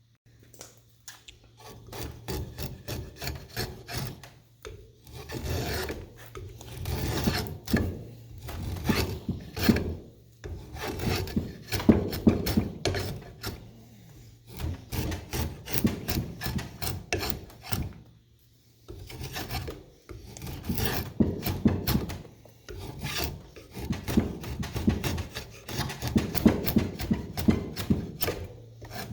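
Quick back-and-forth rasping strokes of abrasive hand work on the drawknife or its wooden handles, coming in runs of several seconds. There is a near-silent pause a little past the middle.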